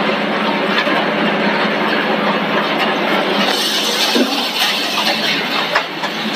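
Steady mechanical din of a running snack-food extrusion production line, its conveyors and machines running together with a low steady hum; the noise shifts in tone a little past the middle.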